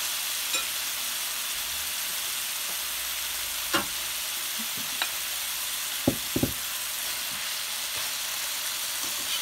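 Chicken breast pan-frying in hot oil: a steady sizzle, with a few sharp clicks around the middle.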